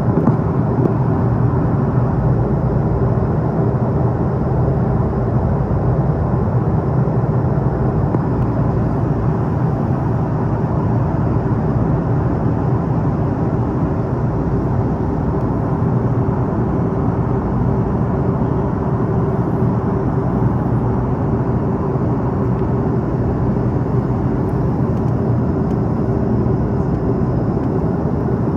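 Steady cabin drone of an Airbus A330-300 airliner in flight: engine and airflow noise with a constant low hum, unchanging throughout.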